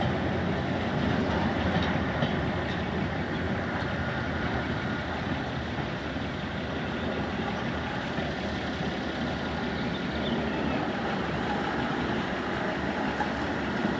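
A diesel train running, a steady noise that eases slightly midway and builds again.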